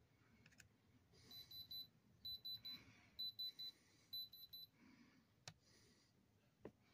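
Handheld electronic diamond tester beeping as its probe is held to a stone: four quick bursts of three short high beeps, about one burst a second. This is the tester's alert for a high, diamond-range reading. A few faint clicks follow near the end.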